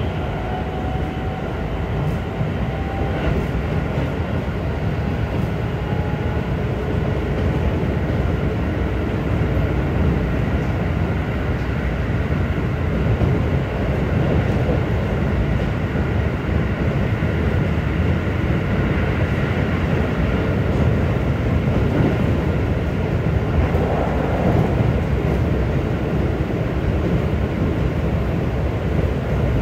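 Keikyu New 1000 series electric train with Siemens IGBT inverters running steadily at speed, heard from inside the car: a continuous rumble of wheels on rails with a few faint steady tones above it.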